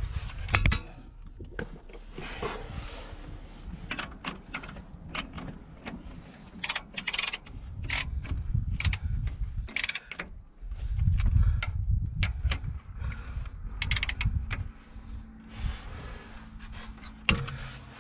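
Irregular metallic clicks and clanks of a socket wrench and steel parts working the bolts on the bottom end of a tractor engine, with bursts of low rumble, strongest in the second half.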